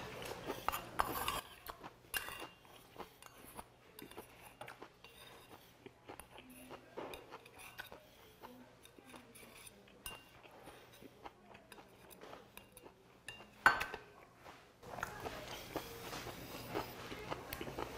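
Close-up eating sounds: chewing and biting, with light clinks of a metal spoon and chopsticks against a stainless steel rice bowl and dishes. One louder knock stands out about three-quarters of the way through.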